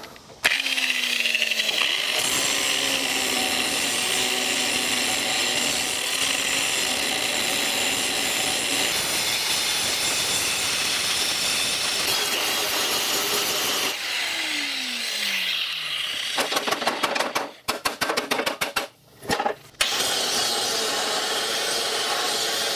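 Angle grinder cutting into the steel of a mower deck shroud to remove old welds, running steadily with a harsh grinding noise. About fourteen seconds in, the motor's pitch falls as it winds down, then comes a few seconds of choppy, stop-start grinding before it runs steadily again.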